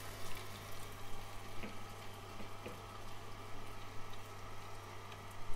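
Angel Juicer twin-gear slow juicer running steadily with a low hum while pressing wheatgrass, with a few faint ticks; a short low bump near the end.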